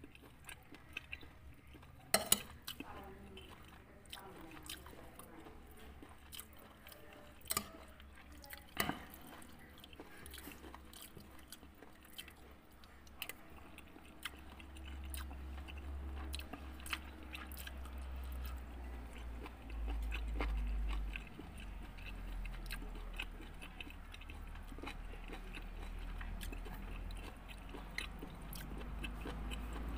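Close-miked chewing of satay meat, with a few sharp clicks in the first ten seconds. A low rumble comes in from about halfway through.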